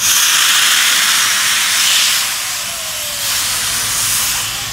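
Steam locomotive venting steam through its open cylinder drain cocks as it moves off: a loud hiss that starts suddenly, eases after about two seconds and swells again briefly near the end.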